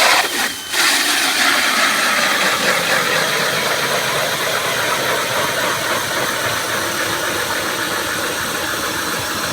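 Motorized ice auger running steadily as it drills a hole through lake ice, with a couple of short bursts just before the steady run begins.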